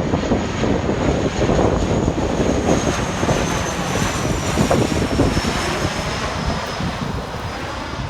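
Arriving airliner passing low on its landing approach: a loud rush of engine noise with a thin high whine that slowly falls in pitch, easing off toward the end as it moves away.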